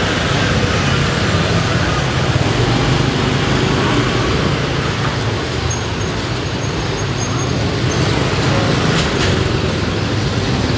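Steady street traffic noise, with motorbike engines passing.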